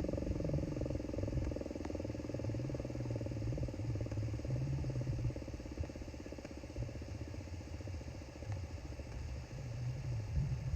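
Outdoor tornado warning siren sounding a steady tone that fades out within the first second or two, leaving a low wind rumble on the microphone.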